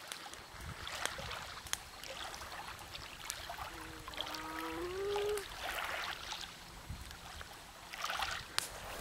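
Small lake waves lapping softly at a gravel shoreline, with scattered light clicks. About four seconds in there is a short pitched sound that rises in pitch.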